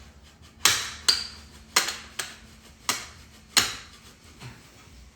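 Hammer blows on metal, about six sharp strikes at an uneven pace with a short metallic ring after each and a lighter tap near the end. They come while a seized part on a dirt bike frame is being driven out.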